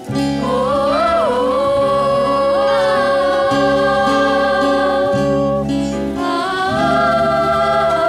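Live pit orchestra and cast performing a show tune: long held sung notes that slide into pitch over a rhythmic bass and chord accompaniment, with a new held note starting about six and a half seconds in.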